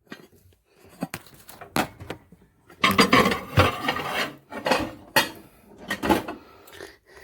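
Stoneware covered baker being handled and slid into a microwave: a string of knocks and clinks, with a denser stretch of scraping and clattering about three seconds in.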